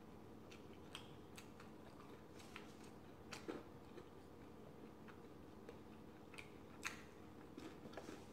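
Near silence with faint, scattered clicks and small crunches of eating: fingers handling food and chewing. Two sharper clicks come a little under halfway and again past the three-quarter mark, over a faint steady hum.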